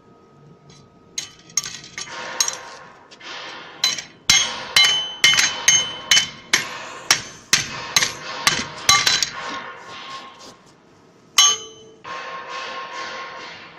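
Hammer blows on steel plate: a quick run of a dozen or more sharp, ringing metallic strikes, then one more strike a couple of seconds later. A steady noise sets in near the end.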